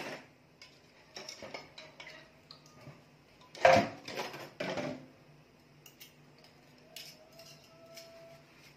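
Dishes and cutlery being washed by hand at a sink, clinking and knocking against each other, with a louder cluster of clatters about four seconds in.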